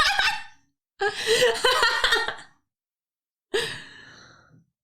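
Short bursts of a person's voice separated by dead silence, ending with a breathy sigh that starts about three and a half seconds in and fades away.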